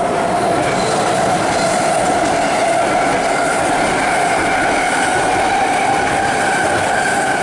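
Loud, steady noise of a large passing vehicle, with a high whine held through it.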